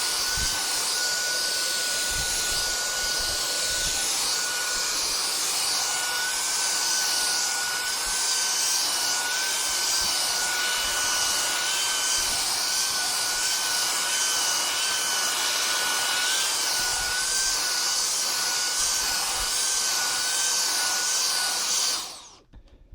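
Vacuum cleaner running while it is used to groom a cat's fur: a steady rushing hiss with a high whine that wavers in pitch now and then. The sound stops abruptly near the end.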